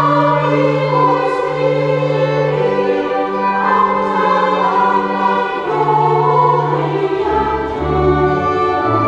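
Church choir singing with church organ accompaniment, the organ holding long low notes beneath the voices. About seven seconds in, the organ bass moves lower.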